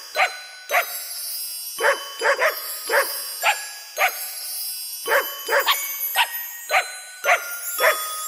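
A dog barking repeatedly: about fifteen short barks in quick runs of two or three, with brief pauses between the runs.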